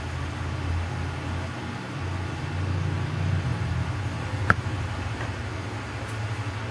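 Steady low hum of a reef aquarium's pumps and circulating water, with one sharp click about two-thirds of the way through.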